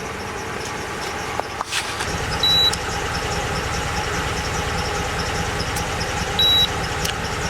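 2009 Ram 1500 engine idling steadily while it warms up. A handheld thermometer gives two short high beeps, about four seconds apart, as readings are taken.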